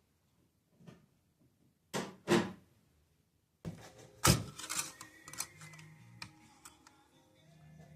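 A few knocks and thuds: two close together about two seconds in, a louder one a little past four seconds in, then lighter clattering.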